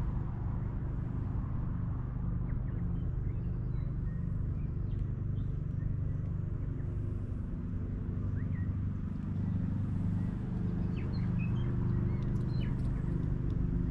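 Steady low hum of an idling engine, with faint short bird chirps now and then, more of them in the second half.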